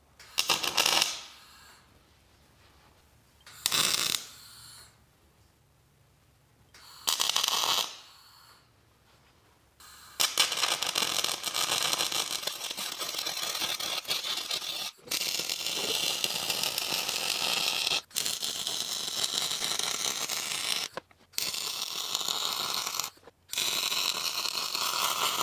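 MIG welder arcing while welding steel gussets. It starts with three short tack welds in the first eight seconds. From about ten seconds in comes a long run of steady crackling weld beads, broken by four brief pauses.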